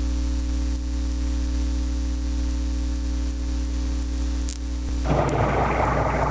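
Steady electrical hum with hiss on the soundtrack of an old recording. About five seconds in, a louder rushing noise starts and keeps going.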